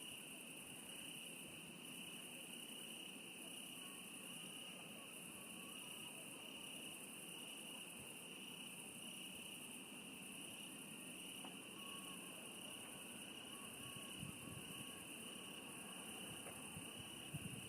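Faint, steady chirring of field insects such as crickets, a continuous high-pitched buzz with a soft pulsing in its upper part.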